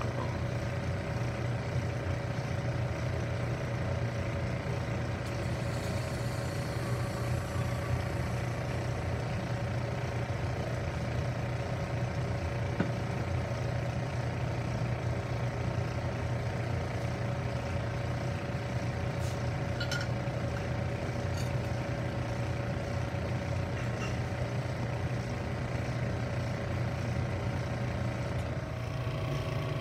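Steady low mechanical hum of running laboratory equipment: a rotary evaporator setup with its low-vacuum pump and recirculating antifreeze chiller. A couple of faint ticks come about two-thirds of the way through.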